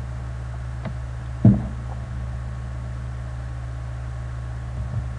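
Steady low hum of the recording setup, with a faint click about a second in and a short thump about a second and a half in.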